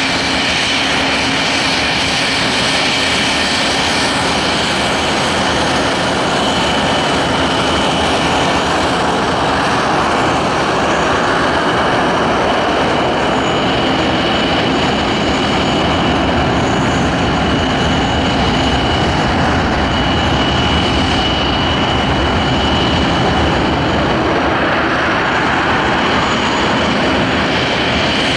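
English Electric Lightning's twin Rolls-Royce Avon turbojets running at taxi power as the jet rolls along the runway: loud, steady jet noise with a high whine held over it.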